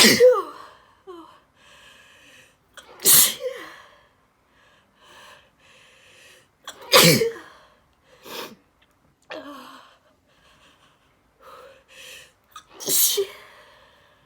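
A woman sneezing four times in a row, loud sudden sneezes a few seconds apart, with quieter breathing sounds between them: a sneezing fit she can't stop.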